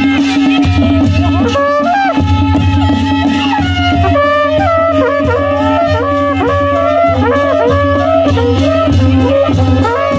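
Nepali panche baja band playing: a shehnai (sahanai) carries a gliding, ornamented melody over a steady held tone, with drums beating a repeating rhythm and cymbals clashing.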